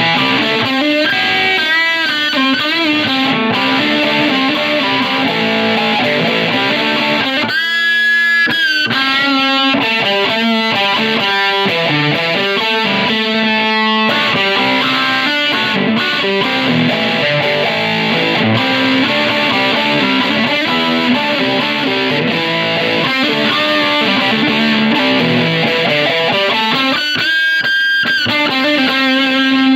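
Electric guitar with EMG active pickups played through a tweed-style 4x10 tube combo amp running 5881 power tubes, a steady stream of riffs and single notes. About eight seconds in and again near the end, the playing thins to one high note ringing on its own.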